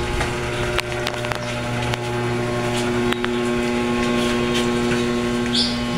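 A steady low electrical hum, with a few faint light clicks and knocks over it.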